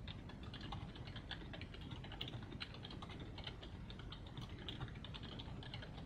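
Computer keyboard typing in quick, irregular keystrokes.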